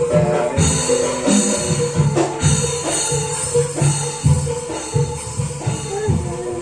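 Street buskers' music with a steady beat of drums and tambourine jingles, sounding like a drum band.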